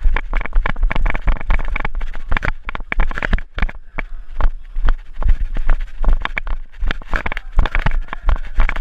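Fast running footsteps crunching on a loose granular floor, an irregular patter of many steps a second, with bumping and rumble from the body-worn camera jolting along.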